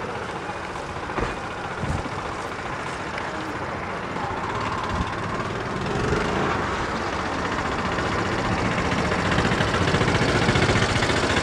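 Road traffic going by: the engines of cars, motorbikes and auto-rickshaws on the avenue. It grows louder in the second half as a car passes close.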